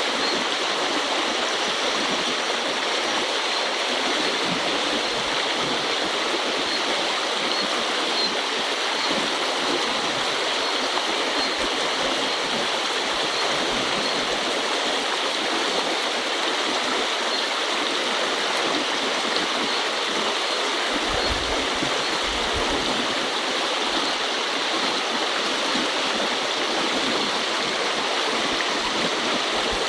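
Small river's current rushing steadily: an even, unbroken wash of flowing water.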